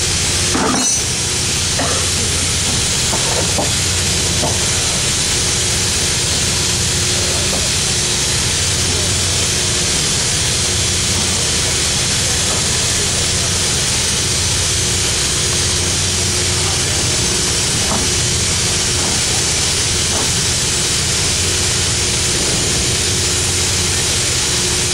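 Machinery running steadily aboard a boat: an even hiss with a low hum and a steady mid-pitched tone underneath. A brief knock comes about a second in.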